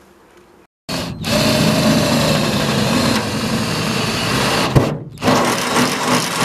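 Energer cordless drill running under load, boring through the sheet-steel skin of a van's rear door. It starts about a second in, breaks off briefly with a sharp click just before five seconds, then runs on.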